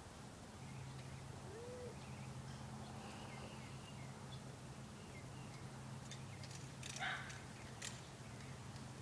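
Quiet outdoor ambience: a steady low hum with faint bird chirps, and a couple of brief louder sounds about seven and eight seconds in.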